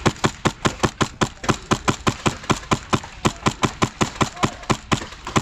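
Wolverine MTW HPA airsoft M4 fired in rapid semi-automatic, a steady string of sharp shots at about four to five a second.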